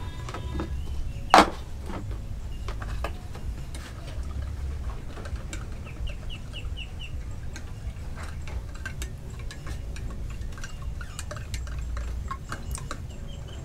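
Metal spoon clinking against a small glass as coffee is stirred, in many light ticks, with one sharp knock about a second and a half in. A short run of high chirps comes about six seconds in.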